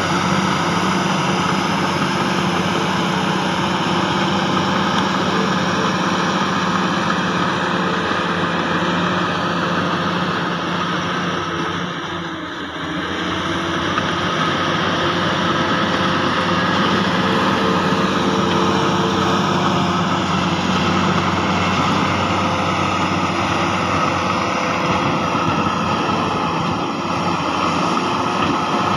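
Heavy diesel earthmoving machinery (a bulldozer and dump trucks) running steadily with a deep engine hum. The sound dips briefly about twelve seconds in.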